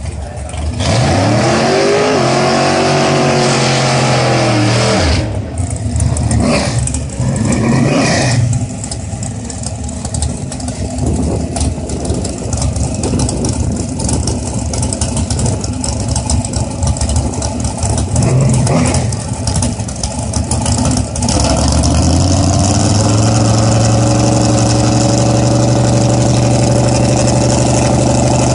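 Drag-race car engines. In the first seconds a car launches and revs hard, its pitch climbing and falling as it pulls away, with uneven engine blips through the middle. From about 22 s a big engine rumbles steadily and loudly at the starting line, its pitch creeping up.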